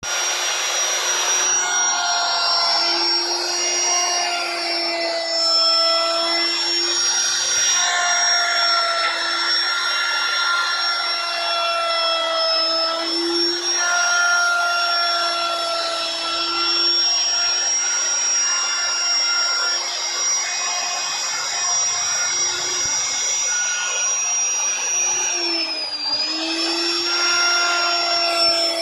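Endico electric plunge router running at high speed, a steady high-pitched whine as its small bit cuts into wood; the pitch dips briefly under load about 26 seconds in.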